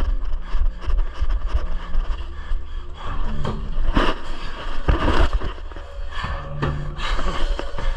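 Drum and bugle corps playing: brass holding and changing chords over sharp drum hits, with a heavy low rumble of movement over it all.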